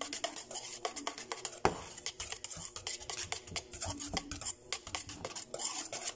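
Wire whisk beating pancake batter in a stainless steel mixing bowl: fast, irregular clicking and scraping of the whisk against the metal, with one louder knock a little under two seconds in.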